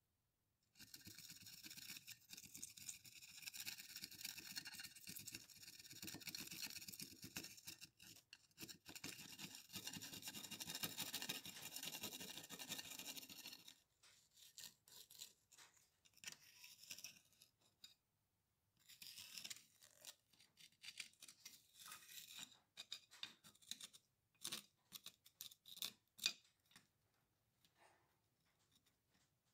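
A flat-blade screwdriver scraping caked, dried soil off a rusted iron ripping tine. It makes a steady scratching for about the first thirteen seconds, then short separate scrapes and picks with gaps between them.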